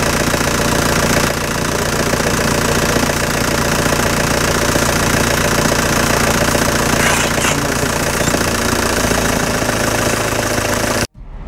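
Safari jeep's engine idling steadily, close by. Near the end it cuts off suddenly and a short whoosh begins.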